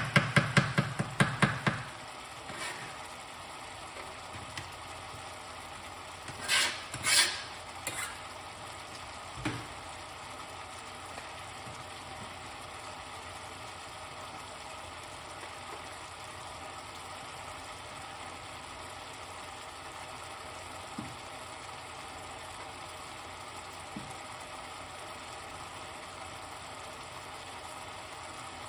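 Mixed vegetables and mushrooms sizzling quietly in a metal pot on a hotplate. A spoon clatters quickly against the pot for the first couple of seconds, scrapes twice about seven seconds in and knocks once near ten seconds, then only the steady sizzle goes on.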